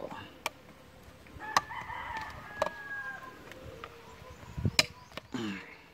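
A rooster crows once, a call lasting nearly two seconds that falls away at its end. Sharp clicks and knocks come from the metal parts of the homemade gun being handled, loudest just as the crow begins and again about a second before the end.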